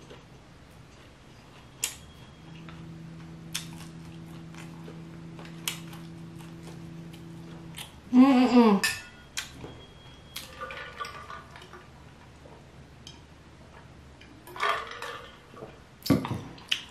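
Quiet eating at a table: a few light clicks, then about eight seconds in a woman's loud vocal sound of enjoyment, an 'mmm' that falls in pitch, followed by softer short vocal sounds.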